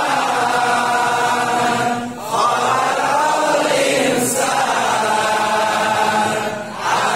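A large group of men reciting Quran verses aloud in unison in a chant-like recitation. It is broken by two brief pauses, about two seconds in and near the end.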